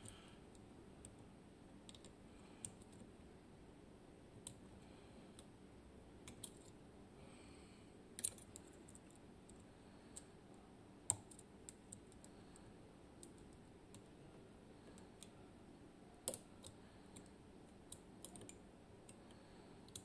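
Faint, scattered clicks of a lock pick working the pins and sliders inside a Magnum Atlantic cylinder lock while single-pin picking under tension, one every few seconds; the sharpest click comes about eleven seconds in. A pin is still unset, so the lock has not yet opened.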